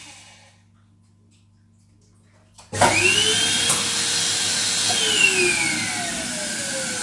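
Electric balloon inflator switching on suddenly about three seconds in, its motor whine rising quickly and then holding steady while it fills a double-stuffed latex balloon. For the last two seconds the pitch falls gradually.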